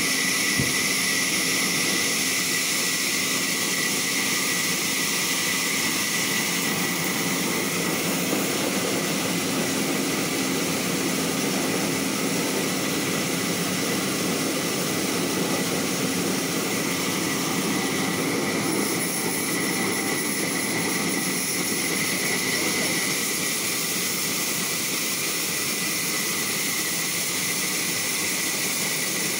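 Large sawmill band saw running steadily, its blade cutting a log fed on the carriage, with a constant high whine over a broad machine roar.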